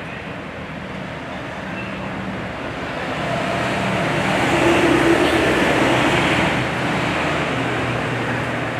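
A van driving past on the road, its engine and tyre noise swelling to a peak about five seconds in and then fading away.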